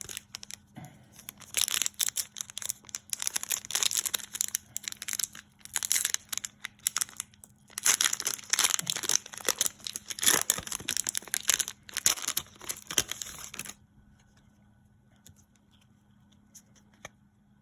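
A foil Pokémon card booster pack being torn open and crinkled, a dense run of crackling rustles that pauses briefly partway and stops a few seconds before the end.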